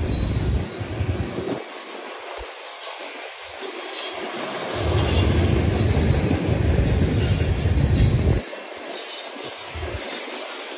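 Loaded freight cars rolling past on steel wheels, with a steady rail noise. Gusts of wind rumble on the microphone, strongest from about halfway in until a little before the end.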